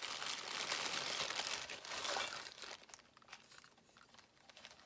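Clear plastic bag crinkling as the dolls inside are handled and pulled out. The rustling is dense for about the first two and a half seconds, then dies down to a few small, quieter crinkles.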